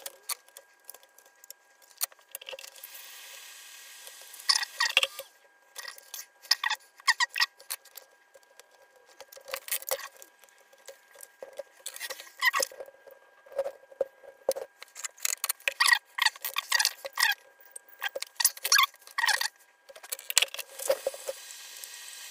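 Small clicks, taps and rattles of parts and tools being handled on a workbench, in irregular clusters with short pauses.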